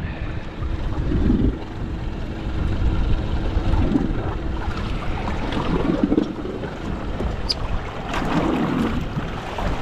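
Wind buffeting the microphone and waves sloshing against a boat's hull, in uneven swells, over a low steady hum.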